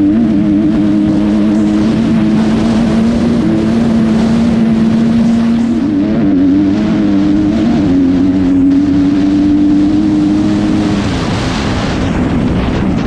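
Kawasaki single-cylinder dirt bike engine pulling hard at high revs down a straight, ridden from the saddle. Its note holds steady, dips and picks up again about halfway through, then falls away near the end as the rider backs off the throttle.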